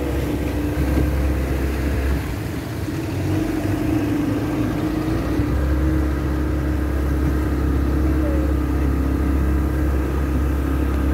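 Outboard motor of a small tender boat running steadily with a low hum as the boat moves across open water, dipping briefly about two seconds in.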